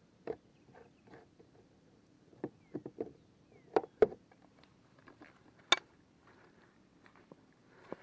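Scattered clicks and knocks of a kayak's pedal drive and fittings being handled, irregular and unevenly spaced, with the sharpest knocks about four and six seconds in.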